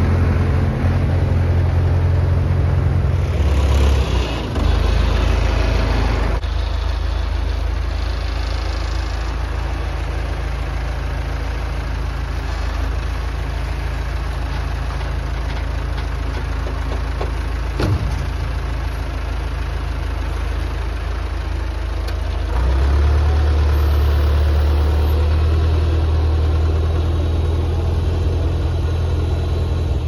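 Massey Ferguson MF 30 industrial tractor's engine running steadily while its front loader sets a log onto a dump trailer. The engine note shifts about four to six seconds in and gets louder again after about twenty-three seconds, with a single sharp knock near the middle.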